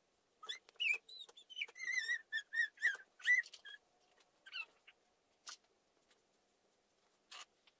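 A small bird chirping: a quick string of short whistled notes with a brief warbling trill over the first few seconds, then a few scattered single chirps.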